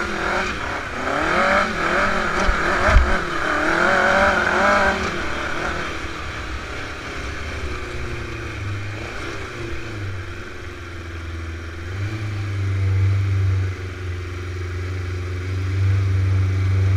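Dune buggy engine revving up and down while driving, with a sharp thump about three seconds in; after about six seconds it settles to a quieter, steady low running.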